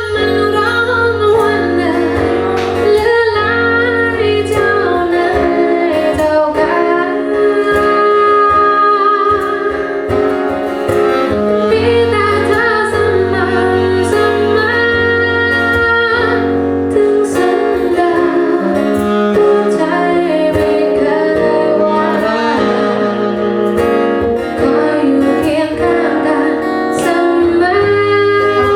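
Live band music: a woman singing a melody over guitar and bass.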